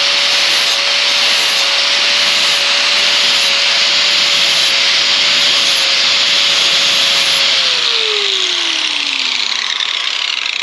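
A power tool's sanding disc grinding the steel cutting edge of a mulching lawn mower blade, a steady gritty rasp over an even motor whine. About seven and a half seconds in the motor is let off and spins down, its pitch falling as the grinding fades.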